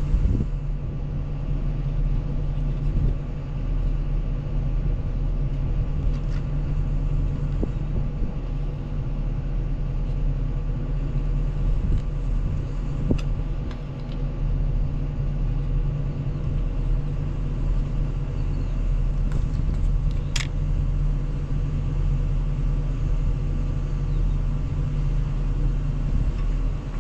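Diesel engine of heavy construction equipment running steadily, a constant low rumble. A couple of brief light knocks come through, about halfway and about three-quarters of the way in.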